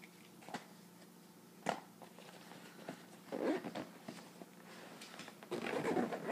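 Handling and rummaging in a fabric medical bag: a couple of sharp clicks or taps, then rustling of fabric and items being moved, loudest near the end.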